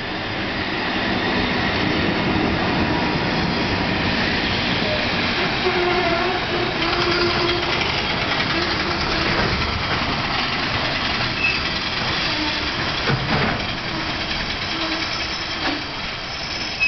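Trains running side by side on rails into a station: the steady rumble of an ED75 electric locomotive and its container flatcars rolling along, with a faint clickety-clack, building over the first couple of seconds and easing a little near the end as the freight slows to a stop.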